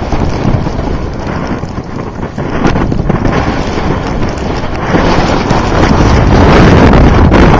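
Loud blizzard wind buffeting the microphone, an unbroken rushing noise that gusts harder about five seconds in.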